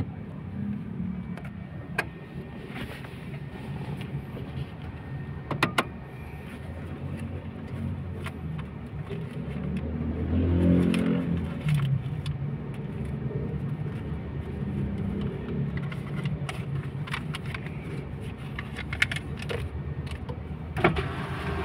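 Steady low hum of a stationary car heard from inside the cabin, with scattered sharp clicks and rustling as a wallet and banknotes are handled.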